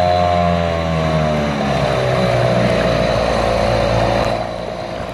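Small 3.3 hp outboard motor on a kayak running at speed. About one and a half seconds in, its pitch drops as the revs fall and the sound turns rougher, then it gets a little quieter near the end.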